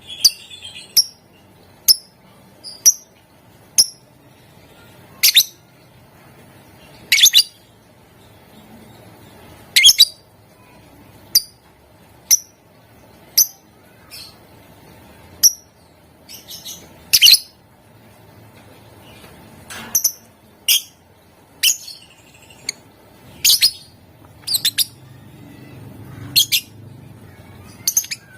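Lovebird giving short, sharp, high-pitched chirps, one every second or so, some in quick pairs or small clusters, over a faint steady background hum.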